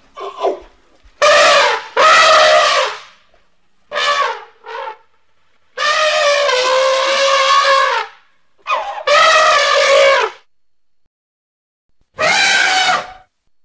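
Woolly mammoth sound effect: a series of loud, elephant-like trumpet calls, about seven of them with short gaps between, the longest lasting about two seconds near the middle.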